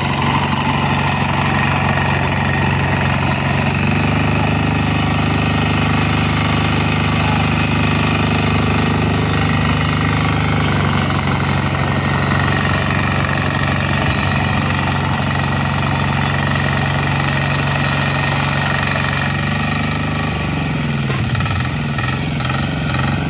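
Small engine of a walk-behind reaper running steadily as the machine is walked through the crop cutting barley. Near the end its pitch wavers and shifts.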